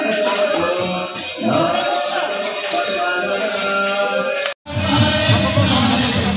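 Devotional kirtan: voices singing over jingling hand cymbals. About four and a half seconds in it cuts sharply to a louder passage with a steady drum beat under the jingling.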